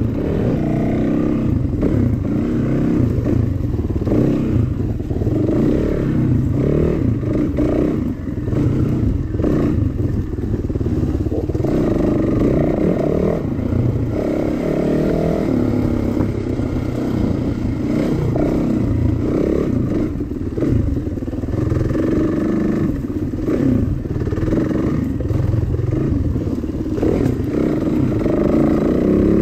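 Dirt bike engine revving up and down while being ridden along a rough trail, with clatter from the bike over the bumpy ground.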